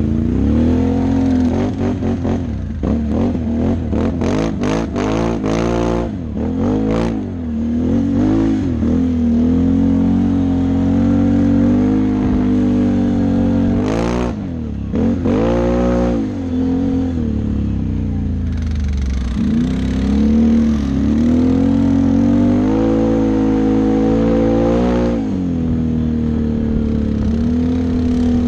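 Can-Am Outlander XMR 650 ATV's V-twin engine revving up and down under changing throttle while riding, with a rapid run of sharp clicks and knocks about two to six seconds in. Near the end it settles to a steadier, lower run.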